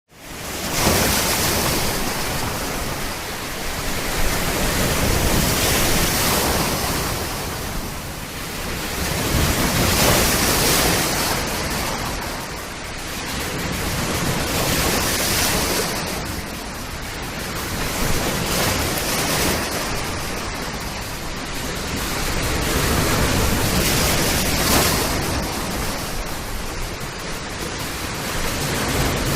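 Sea waves breaking on a coast: a steady rush of surf that swells and ebbs every few seconds, fading in at the start.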